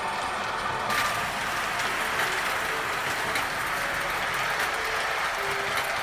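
O-gauge three-rail toy trains running: a steady whirr of small motors and wheels on metal track, with clicks at the rail joints. A set of high steady tones fades out about a second in.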